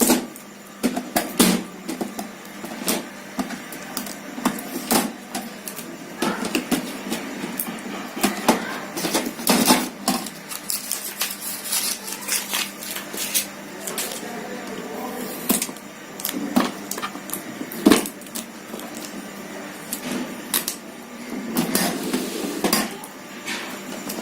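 Hands stripping the packing tape off a new Epson L380 inkjet printer and handling its plastic casing: scattered sharp clicks and knocks over rustling, at irregular intervals.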